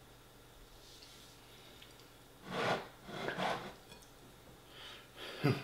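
A man's heavy breaths out through the mouth, two about halfway through and another near the end ending in a short low groan, as he reacts to the heat of spicy chilli.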